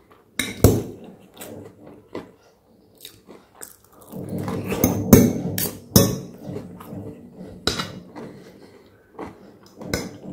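Serrated table knife and fork clinking and scraping against a white ceramic bowl while cutting food, with chewing in between. There are several sharp clinks, and a busier run of scraping and clinking about four to six seconds in.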